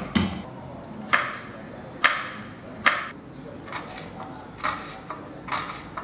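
Kitchen knife slicing a shallot on a wooden chopping board: each cut ends in a sharp knock of the blade on the board, at an even pace of about one a second, with a few softer taps between.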